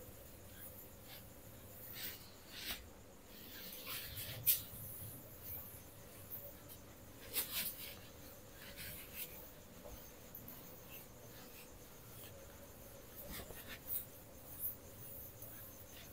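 Duster wiping a whiteboard in broad strokes: faint, irregular swishes and light squeaks, a little louder about four and a half and seven and a half seconds in.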